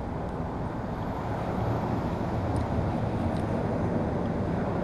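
Steady low rumble of a running vehicle engine, with a few faint clicks over it.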